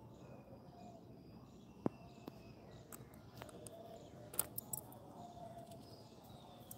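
Faint outdoor background with some faint wavering tones, broken by sharp clicks: one about two seconds in and a quick cluster of clicks around four and a half seconds.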